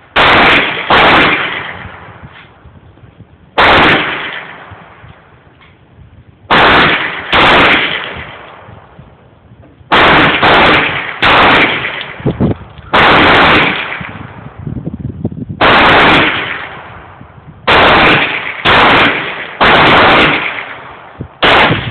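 9mm pistol firing about fifteen single shots at an irregular pace, some in quick pairs. Each shot is loud and sharp and dies away in a long echoing tail.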